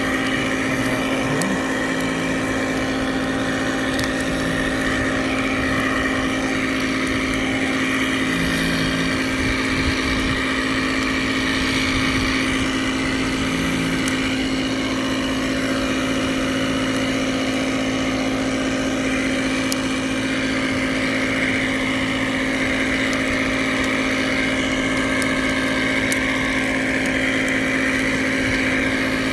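Air compressor running with a steady hum, while compressed air hisses out of a go-kart tire at a gap between the bead and the rim where the tire has not yet sealed.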